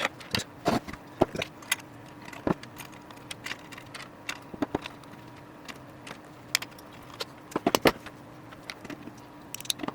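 Irregular small clicks, taps and rattles from hands working on wiring, fitting twist-on wire nuts and handling small parts, over a faint steady hum.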